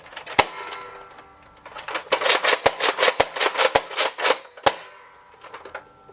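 Sharp hard clicks and clacks: one about half a second in, then a quick irregular run of about a dozen between two and five seconds, with a faint ringing after them.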